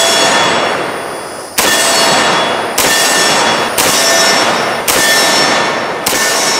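Rapid rifle fire from an AR-10 in .308 with a muzzle brake: five shots about one a second, the first sounding about a second and a half in. Each shot is followed by a long ringing decay from a struck steel target.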